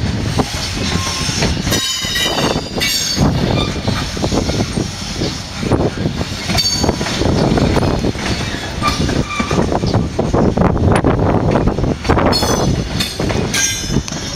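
Freight train's covered hopper and tank cars rolling slowly past: a steady rumble of steel wheels on the rails, clicking over the rail joints, with a few brief high metallic wheel squeals.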